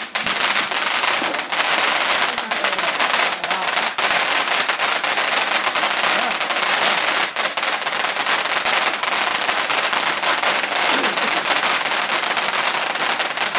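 Rapid-fire fireworks going off in a loud, dense, unbroken stream of cracks and pops.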